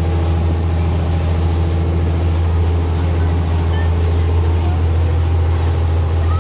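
Engine of a fast passenger boat running steadily under way: a loud, steady low drone, with wind and rushing water from the wake over it.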